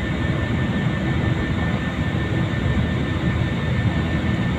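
Airliner cabin noise: the steady, loud rumble of the engines and rushing air heard from inside the cabin, with a faint steady whine above it.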